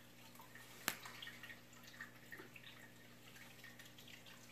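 Faint small clicks and taps of baitcasting reel parts being handled, the sharpest a single click about a second in, over a low steady hum.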